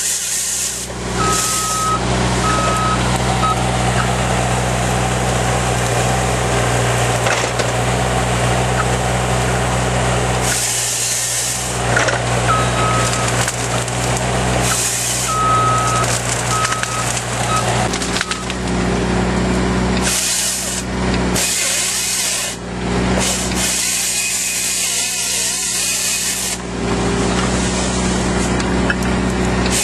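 Excavator's diesel engine running steadily while its hydraulic chainsaw attachment works, with spells of high sawing noise that start and stop every few seconds as it cuts through trees. Short electronic beeps sound near the start and again in the middle.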